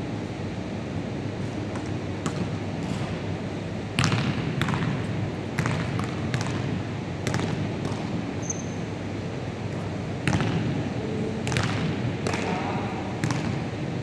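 Basketballs bouncing on a wooden gym floor, irregular thuds echoing in a large hall, louder ones starting about four seconds in. A short high squeak comes about eight and a half seconds in.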